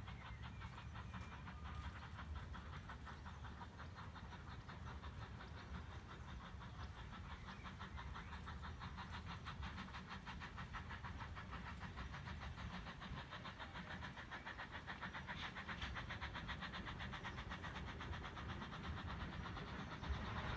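Narrow-gauge steam locomotive working towards the listener, its exhaust beating in a quick, even chuff that grows gradually louder as it approaches.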